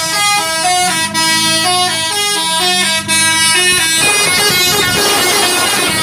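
Basuri 'telolet' musical air horn on a Tunggal Jaya bus playing a quick tune, its notes changing several times a second, then a held horn chord over the last two seconds.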